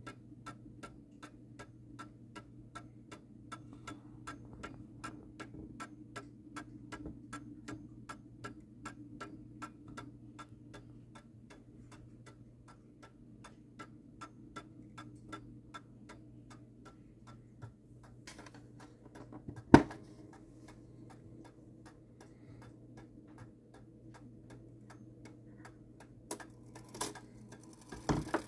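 The pendulum movement of a 1920s HAC tambour mantel clock ticking evenly, about three ticks a second. There is one sharp, loud knock about two-thirds of the way through and a few more knocks near the end.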